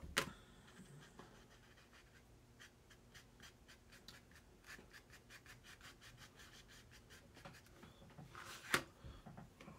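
Watercolour brush dabbing and stroking on paper: faint, quick taps about four a second. A sharper click comes just after the start, and a louder one about a second before the end.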